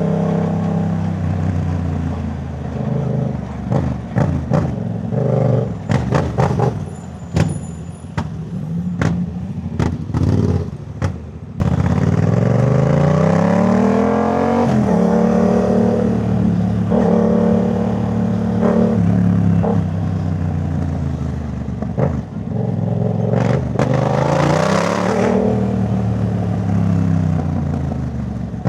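Yamaha MT-07 parallel-twin engine running through a Jeskap full exhaust while riding in traffic. A run of sharp cracks sounds in the first third, and the engine revs up in rising pulls twice, about twelve seconds in and again near twenty-three seconds, between stretches of steady running.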